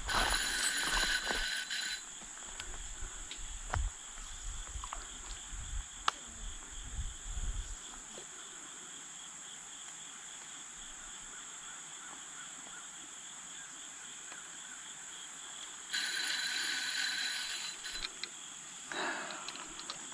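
Creekside outdoor sound: a steady high-pitched insect drone, with low bumps and knocks from camera handling over the first several seconds and two short bursts of hiss, one at the start and one about sixteen seconds in.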